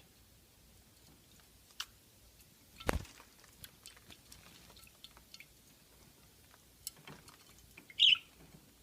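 Budgie bathing in a water dish: faint drips, splashes and small clicks, a thump about three seconds in, and a short, sharp, high-pitched sound from the bird near the end.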